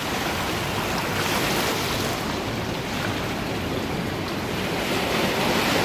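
Sea surf washing in through shallow water between rocks: a steady rush of waves.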